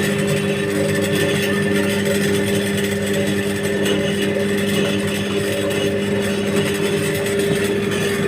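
Steady mains hum of a small electric motor running at constant speed, with no change in pitch or level.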